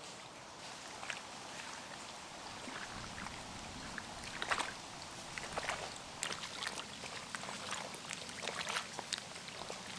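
Small irregular splashes and drips of lake water, with a faint steady trickle behind them.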